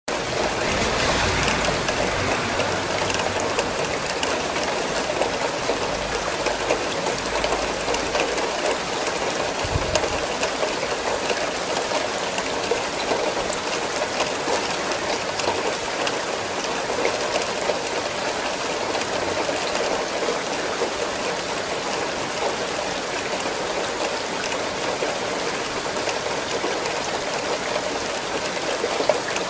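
Steady rain falling: an even hiss of rain with many small drops pattering.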